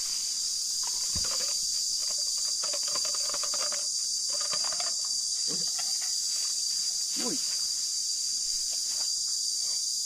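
Steady, high-pitched insect chorus with a constant shrill drone. Underneath it are faint rustling, scattered soft clicks and a couple of short gliding sounds.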